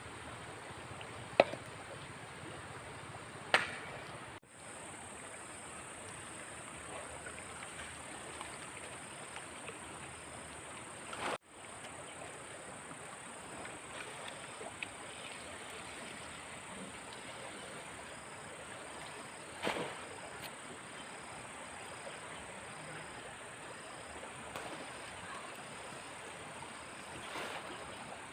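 Steady background hiss with a constant high thin whine, broken by a few sharp clicks or knocks, the loudest about a second and a half in, then another around three and a half seconds and one near twenty seconds.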